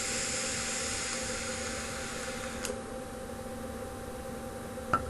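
A long breathy hiss of a person breathing through a vape, drawing or exhaling vapour, that stops abruptly about two and a half seconds in. A faint steady hum remains underneath, and a single click comes near the end.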